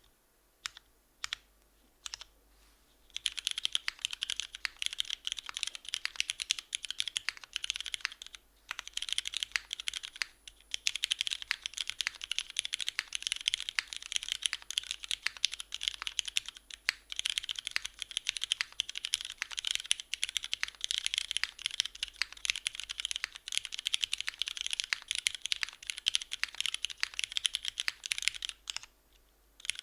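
Typing on a 60% mechanical keyboard with lubed Cherry MX Red linear switches in a top-mounted aluminium plate without foam, under GMK keycaps. A few single key presses come first, then fast continuous typing with a couple of short pauses, which stops shortly before the end.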